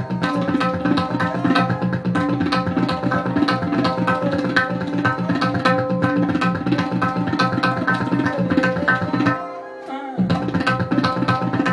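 Tabla solo: fast, dense strokes on the pair of drums, over a steady drone and a repeating melodic accompaniment. The drums stop for under a second near the end and then come back in.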